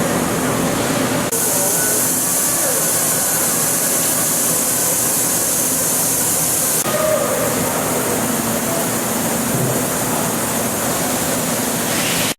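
Milltronics CNC machining center running a high-efficiency milling cut, a steady mechanical noise with faint steady tones. A loud high hiss, like coolant spray, comes in about a second in and stops suddenly about seven seconds in.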